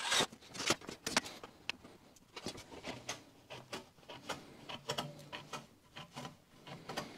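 Aviation snips cutting sheet metal: a run of short, crisp clicks as the jaws bite along the cut, after a few louder scraping strokes in the first second.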